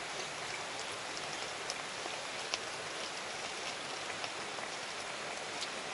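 A steady, even hiss of background noise with a few faint ticks, the clearest about two and a half seconds in.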